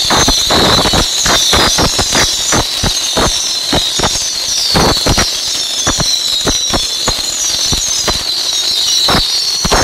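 Thousands of baby rockets (tiny Dutch bottle rockets) going off together: a dense, steady high whistling of many rockets at once, with wavering whistles above it, and many sharp pops and cracks in quick, irregular succession.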